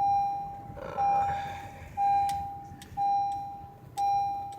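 A car's electronic warning chime dinging five times, about one ding per second, each a single tone that fades before the next.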